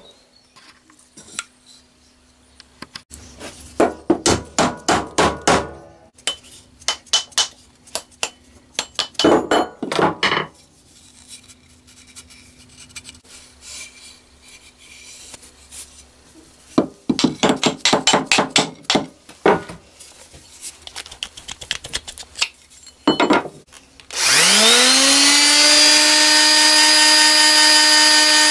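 Several bursts of rapid sharp knocks on wood, then near the end a Metabo electric sander starts up, its whine rising as it spins up and settling into a steady run as it sands the wooden hatchet handle.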